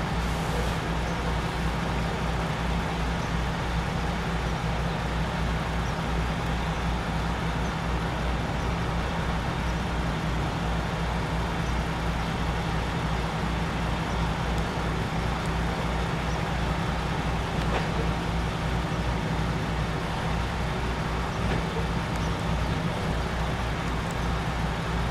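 Steady low engine drone that holds the same pitch and level throughout, over a constant wash of noise.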